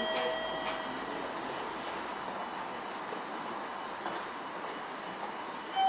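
Steady railway-platform background noise: a continuous hiss with an unchanging high whine, and a few faint brief tones in the first second.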